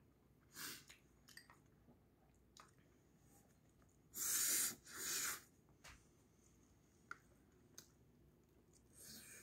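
A man eating at close range: faint chewing and light clicks of metal chopsticks, with two loud breaths back to back about four seconds in as he takes a mouthful.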